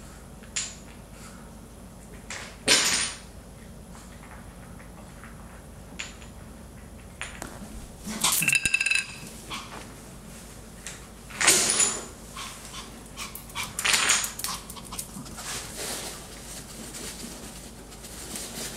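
Wooden Jenga blocks knocking and clattering on the floor as small dogs nudge at the tower and pull blocks loose, in several separate clatters, one of them longer and ringing.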